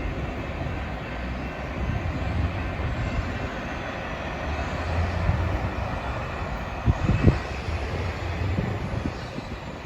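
Freight train cars rolling past with a steady rumble and no horn sounding, and two sharp thumps about seven seconds in.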